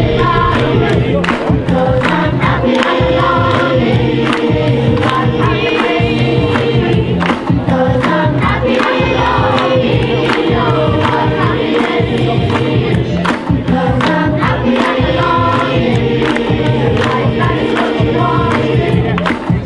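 Choir of women's and children's voices singing, with hand claps keeping the beat.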